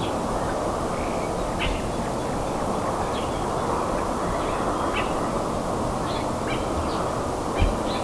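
Birds chirping, with short high calls scattered through, over a steady rushing background noise. A single low thump comes near the end.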